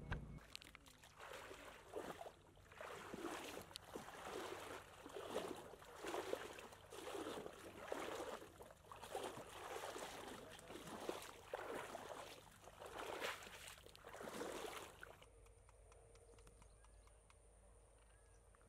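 Person wading through a waist-deep muddy ditch: water sloshes and splashes with each stride, about one a second, and stops abruptly near the end.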